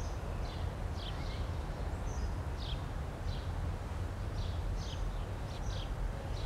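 A small bird chirping over and over, short high falling chirps about every half second, over a steady low rumble of outdoor background noise.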